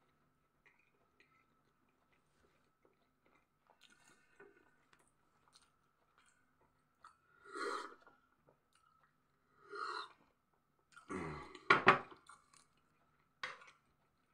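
A person eating: faint chewing at first, then sips from a glass of tea about halfway through, followed by a few louder mouth sounds. The loudest is a cluster about three-quarters of the way through.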